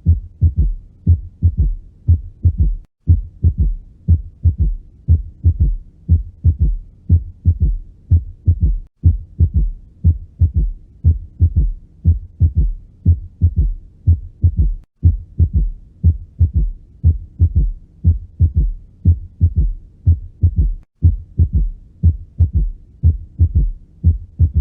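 Heart sounds heard through a stethoscope: a steady run of low thuds demonstrating a third heart sound (S3), the extra early-diastolic sound after the second heart sound that makes a gallop rhythm. The recording repeats with a brief dropout about every six seconds.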